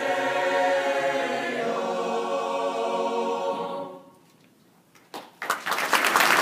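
Choir singing a held, sustained chord that ends about four seconds in. After a brief near-silence, the audience bursts into applause near the end.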